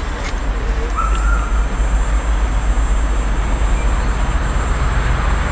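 Peppercorn A1 Pacific steam locomotive 60163 Tornado approaching at speed with its train, a steady rumble growing gradually louder.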